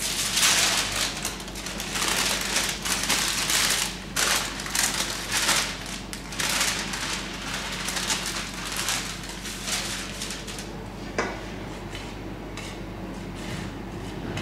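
Parchment paper rustling and crinkling as sifted flour is tipped off it into a stainless steel bowl of batter, in a run of noisy bursts. About eleven seconds in comes a single sharp knock, and then a wire balloon whisk stirs the flour into the batter more quietly.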